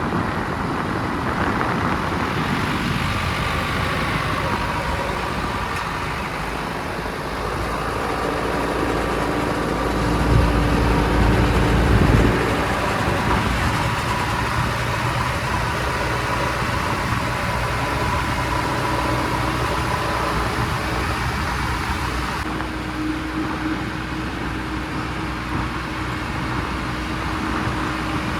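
Diesel engine of a JCB 3DX backhoe loader running as it digs and loads, surging louder for a couple of seconds about ten seconds in, with a steady whine over the engine through the middle part.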